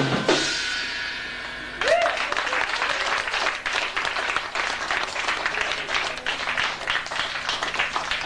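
A rock band's last hit rings out with cymbals for under two seconds, then a small club audience breaks into applause, with a short shout as it starts.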